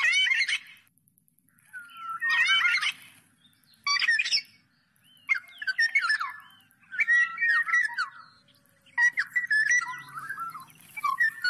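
Black-naped oriole singing a string of short phrases, about six of them with brief pauses between, each a quick run of whistled glides mixed with rougher, harsher notes.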